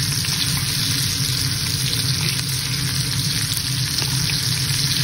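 Ribs frying in bubbling butter in a cast-iron grill pan: a steady sizzling hiss, with a steady low hum underneath.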